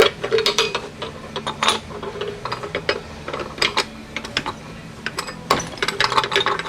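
Metal hand tools clicking and clinking on a Volkswagen bus transmission's steel parts, in irregular clusters of sharp clicks, as a wrench is worked on a tight nut.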